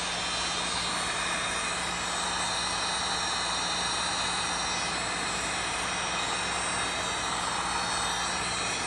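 Electric heat gun running steadily, blowing hot air to shrink glue-lined heat-shrink tubing over a wire connector.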